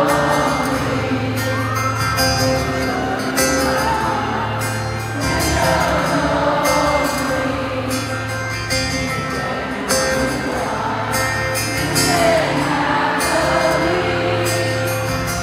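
Live concert performance of a pop ballad: a male lead vocal over a band with sustained bass and light percussion.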